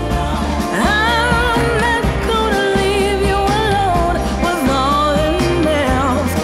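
Outro song: a singing voice carrying a wavering melody over a steady bass line.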